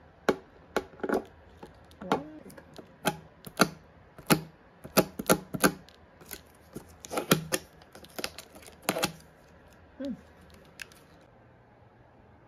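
Clear hard-plastic storage bin handled by hand: many irregular sharp clicks and taps of hard plastic, stopping about a second before the end.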